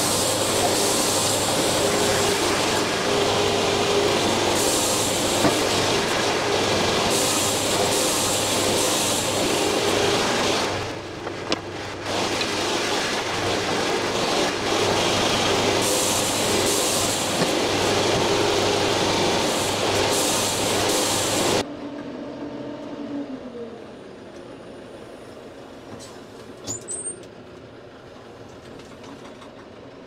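Wood-Mizer LT70 diesel band sawmill running through a poplar log: a loud, steady sawing noise with a short break about eleven seconds in. About two-thirds of the way through the noise cuts off sharply and a falling whine winds down, leaving a much quieter machine hum with a few light clicks.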